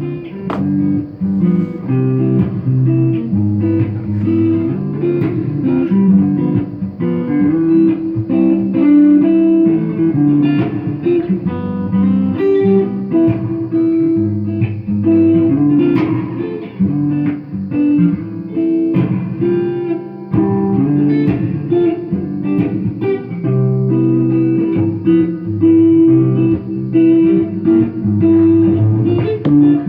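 Takamine GX-100 electric guitar with DiMarzio pickups played through a small lunchbox tube amp head, a continuous run of quickly changing notes and chords.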